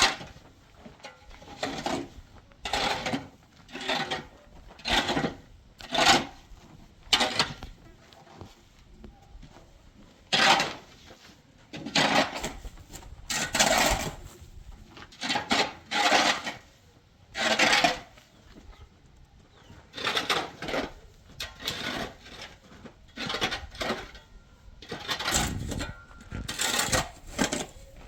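Repeated scraping strokes of a metal tool through wet cement mortar, about one a second with short pauses.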